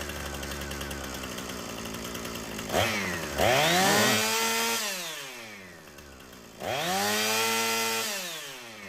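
Husqvarna 455 Rancher two-stroke chainsaw engine, with bar and chain off, idling and then revved to high speed twice, each time winding back down to idle. This is a test run after a carburetor rebuild, checking the idle and throttle adjustment.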